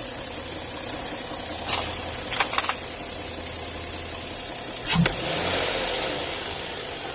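Toyota 1G-FE BEAMS inline-six engine running, with a few sharp clicks and a brief rev about five seconds in. The owner reports a knock in this engine that shows up at about 2000 rpm, cause unknown.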